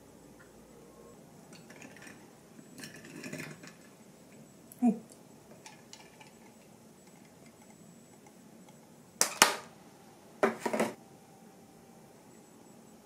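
Kitchen handling sounds: soft rustling, a short falling squeak about five seconds in, then two brief loud crinkles from a plastic tray of chocolate roll cake handled over a ceramic plate.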